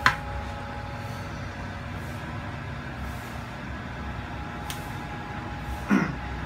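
Steady whir of a running machine, likely a fan or blower, with a faint two-note hum, a sharp click right at the start and another a little before five seconds in, and a short vocal grunt near the end.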